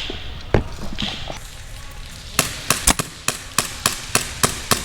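Airsoft gun firing a quick string of single shots, about three to four a second, starting about halfway in, after a few scattered sharp cracks.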